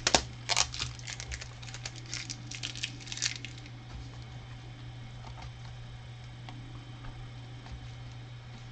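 Loose plastic Lego pieces clattering and clicking against one another: a dense run of clicks for the first three seconds or so, thinning to a few scattered clicks.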